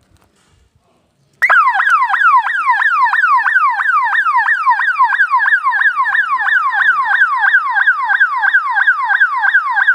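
Motorcycle ambulance's electronic siren switched on about a second and a half in, then sounding loudly: a rapid wail whose pitch falls again and again, about three and a half times a second.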